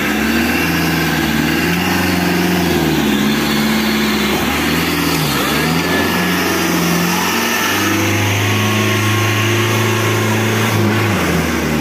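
Off-road competition truck's diesel engine revving hard under load, its pitch rising and falling repeatedly, then held steady at high revs for about three seconds before easing off near the end.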